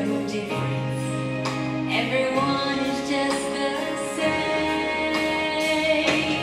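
Backing music of a song: sustained chords over a stepping bass line, with a light, regular beat.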